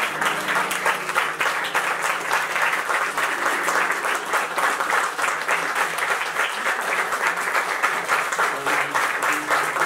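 Theatre audience applauding: dense, steady clapping from many hands as the actors take their bows at the end of the play.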